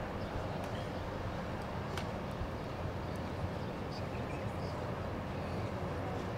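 Steady low outdoor background noise at a shotgun range, with a few faint, short high-pitched chirps and light clicks scattered through it.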